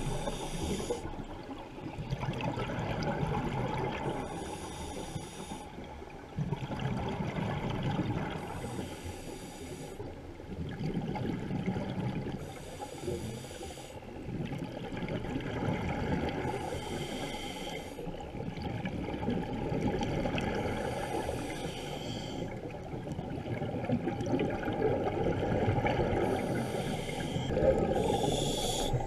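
Scuba diver breathing through a regulator underwater: a short hiss of inhalation about every four seconds, with the rushing, gurgling sound of exhaled bubbles in between.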